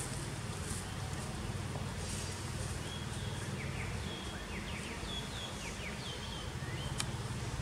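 A run of short, high chirping calls, thin flat notes and quick falling strokes, starting about three seconds in and stopping near the end, over a steady low hum; one sharp click near the end.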